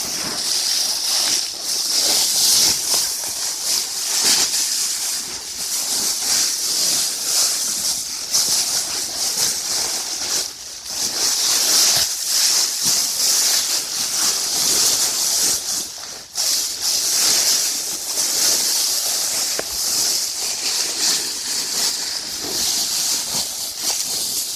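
Blizzard Survival Bag's mylar-like Reflexcell material crinkling loudly and continuously as a person crawls into it, with two brief lulls.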